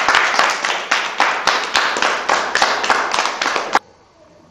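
Applause: a group of people clapping, stopping abruptly about four seconds in.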